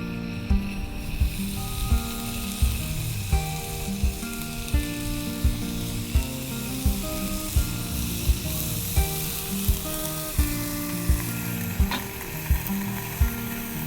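Pork belly wrapped around mitarashi dango frying, a steady sizzle that comes in about a second in, over background music with a steady beat.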